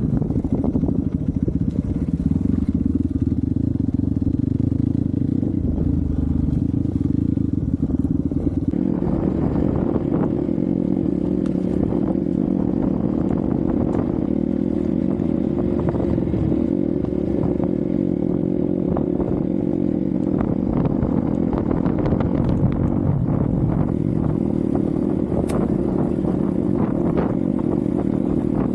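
Hero Xpulse 200 single-cylinder motorcycle engine running steadily while being ridden off-road. From about a third of the way in there are frequent clattering knocks as the bike goes over rough ground.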